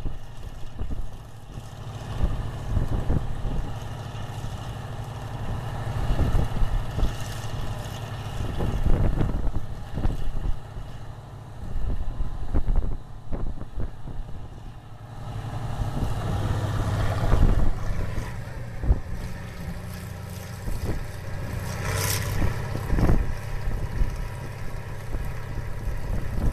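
Farm tractor engine running steadily as it pulls a wagon along the road, with wind buffeting the microphone in gusts.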